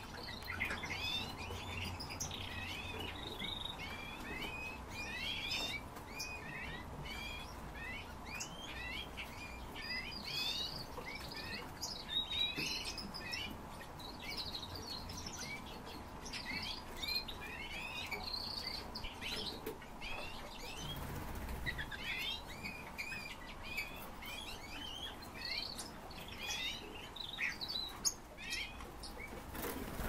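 Caged birds chirping and twittering in a dense, continuous stream of short high notes.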